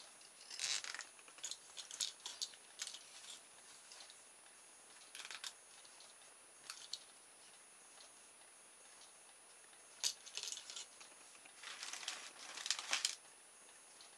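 A plastic cable tie being worked around a wooden barbecue skewer and the arm of a mousetrap: scattered short bursts of faint clicking and rustling. The longest burst comes near the end, as the tie is pulled tight.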